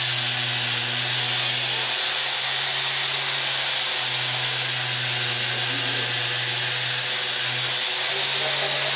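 Powered cleaning equipment working on a Suzuki FR80 engine: a steady, loud hiss with a high whine over a low motor hum, running without a break.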